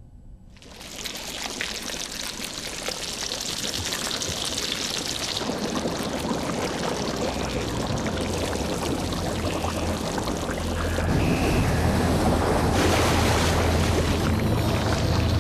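A rushing, water-like noise effect starts abruptly under a second in and swells steadily. A low drone joins about eleven seconds in, and the whole grows louder from there.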